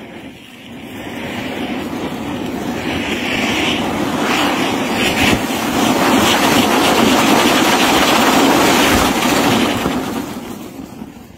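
Anar fountain fireworks strapped to a bicycle wheel, burning with a steady rushing hiss of spraying sparks. The hiss grows louder over the first few seconds, holds, and fades near the end.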